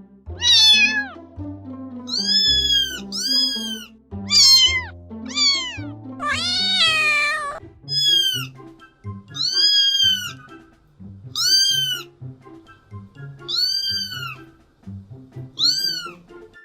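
Domestic cat meowing again and again, about a dozen rising-and-falling meows with short gaps, one longer drawn-out meow a little past the middle, over background music with a steady bass line.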